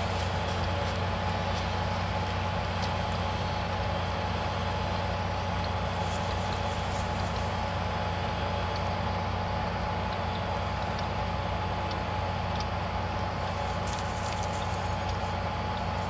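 New Holland T7-210 tractor's six-cylinder diesel running steadily under load while pulling a mounted plough through the soil, a low drone with a thin steady whine above it.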